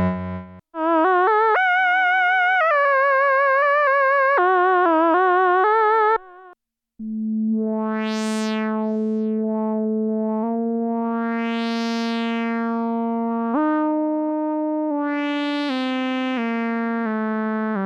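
Roland SE-02 analog monosynth playing demo patches: first a lead melody with heavy vibrato, then, after a short pause, a buzzy sustained tone stepping through notes while its filter sweeps open and closed three times.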